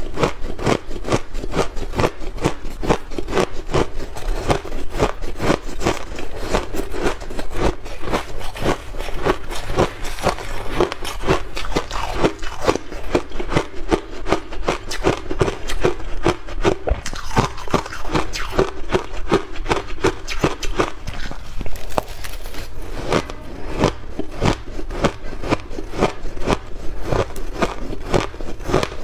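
Soft shaved ice crunching as it is chewed close to the microphone: a rapid, unbroken run of small crunches.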